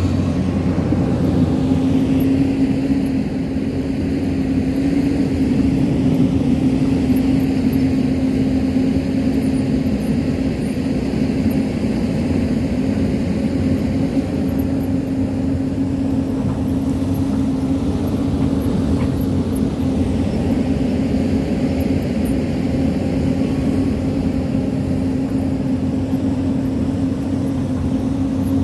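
Hyundai crawler excavator's diesel engine running steadily under working load, an even hum that holds the same pitch and level throughout.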